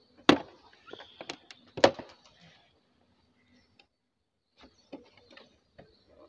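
Plastic side panel of a Yamaha FZ motorcycle being pried and worked loose with a screwdriver: two loud sharp clicks in the first two seconds with smaller clicks between them, then a few faint clicks near the end.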